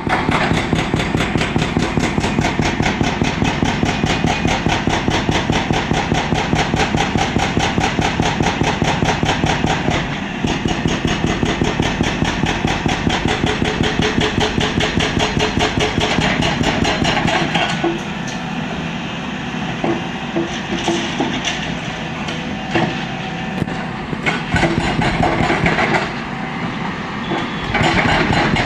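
Excavator-mounted hydraulic rock breaker hammering with rapid, evenly spaced blows. It breaks off about two-thirds of the way through into scattered, irregular knocks, then the rapid hammering resumes near the end.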